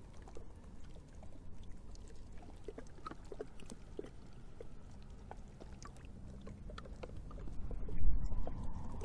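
Wind rumbling on the microphone, strongest near the end, over faint moving river water with scattered small ticks.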